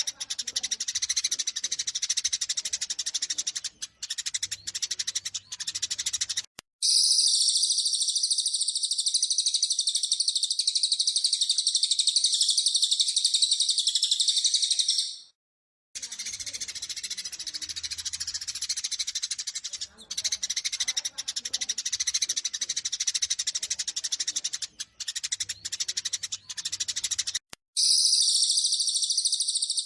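Eurasian tree sparrows' excited fighting chatter, rapid high chirps packed close together, used as a masteran recording to provoke caged sparrows to sing. Twice, about seven seconds in and again near the end, it gives way to a dense continuous high trill that runs for several seconds, after a sharp cut with a moment of silence.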